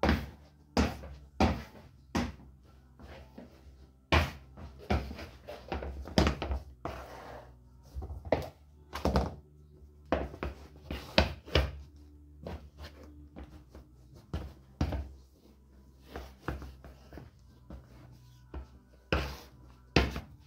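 Loose-fitting Nike Shox sneakers on a laminate floor: irregular thuds and slaps, about one or two a second, as the shoes land and the heels lift out and drop back, some with a short scuff.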